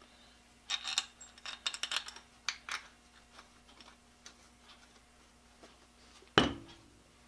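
Steel parts of a three-jaw lathe chuck clinking and rattling as the chuck body is handled and turned over, with a quick run of clinks in the first few seconds. About six seconds in comes one heavy knock with a short ring as the chuck body is set down on the bench.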